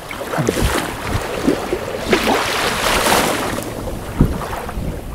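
Wind buffeting the microphone over shallow sea water lapping and sloshing, swelling in a stronger gust through the middle.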